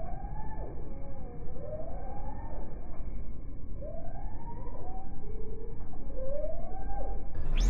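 Slowed-down outdoor sound from slow-motion footage: a deep rumble with a series of drawn-out wails that rise and fall, about every two seconds. Near the end it switches suddenly to brighter, normal-speed sound.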